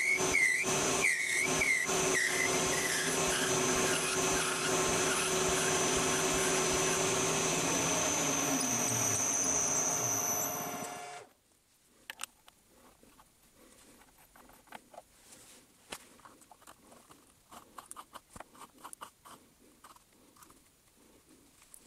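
Metal lathe turning down a pull stud: a wavering high squeal from the cutting tool in the first couple of seconds over the steady run of the machine, which winds down and stops about eleven seconds in. After that, faint clicks as the part is handled.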